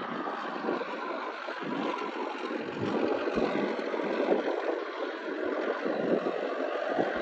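Turbocharged tractor diesel engine working under load as it drags a disc harrow through ploughed soil, with the scraping of the harrow's discs mixed in. The sound gets somewhat louder a couple of seconds in as the tractor nears.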